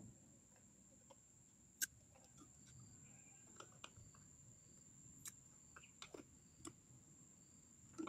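Near silence with a few faint, sharp clicks and taps of a plastic syringe and plastic bottle being handled while battery repair liquid is drawn up and injected into a motorcycle battery's cells; the sharpest click comes about two seconds in.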